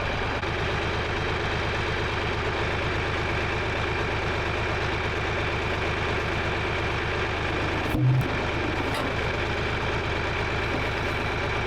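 An engine running steadily at idle, with one short thud about eight seconds in.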